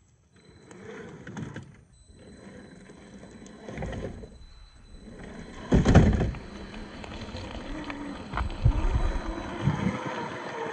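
Traxxas TRX4 scale RC crawler with a 550-size brushed motor driving over trail ground: a faint motor and gear whine through the later part, with scrabbling and uneven knocks, the loudest thump about six seconds in.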